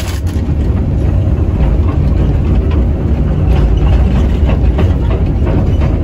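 SANY SY215C hydraulic excavator's diesel engine running steadily at working revs, heard from inside the cab as a deep, even drone while the boom and bucket move, with faint light rattles over it.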